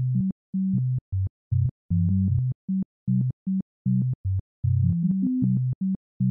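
Electronic intro music: a synthesizer playing short, clipped low notes in a quick, uneven rhythm, with brief gaps between them.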